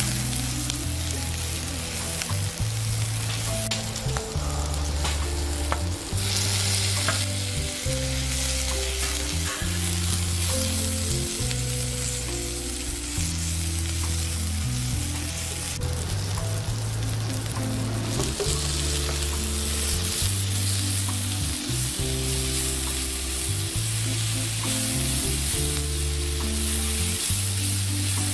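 Chopped onions and green chillies sizzling in hot oil in a nonstick wok while a silicone spatula stirs them. The frying hiss is steady, grows louder about six seconds in and again in the second half, and low background music plays under it.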